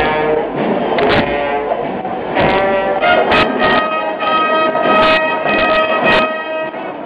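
Procession brass band playing long held notes, with percussion strokes landing roughly once a second.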